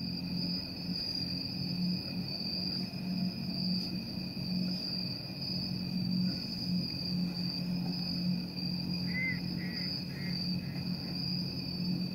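Insects trilling, a continuous high-pitched trill over a steady low hum, with a few short chirps near the end.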